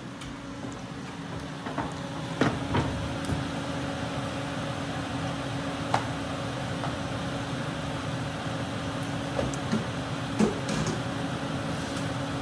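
Steady electric motor hum of a running kitchen appliance, such as a range hood fan, with a few sharp clicks and knocks from cookware being handled.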